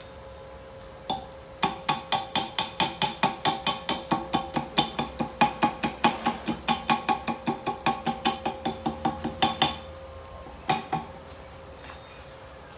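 Rapid hammer blows on a steel weld plate, about four a second for some eight seconds, then two last knocks: slag being chipped off a fresh arc-weld bead.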